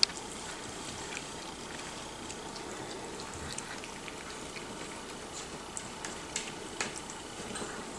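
Miniature schnauzer puppy eating puppy food from a stainless steel bowl: faint wet lapping and chewing with many small scattered clicks. A single sharp click right at the start.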